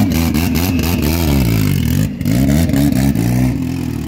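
A race car's engine being revved up and down repeatedly in quick throttle blips, then settling to a steadier note near the end.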